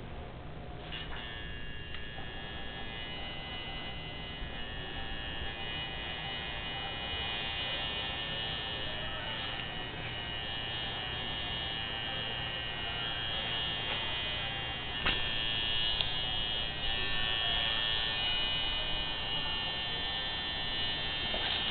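A steady electric buzz with a high multi-tone whine, growing slowly louder, and a faint click about fifteen seconds in.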